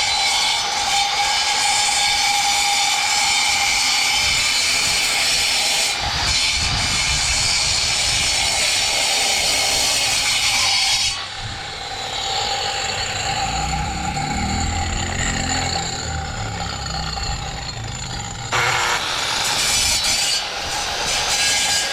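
A machine running: a steady whine with a loud hiss, which eases about halfway through while a lower, shifting rumble comes in, then picks up again near the end.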